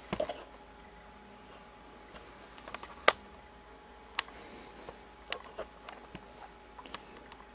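Sparse light clicks and taps of handling, with a cluster right at the start and one sharper click about three seconds in, over a faint steady hum.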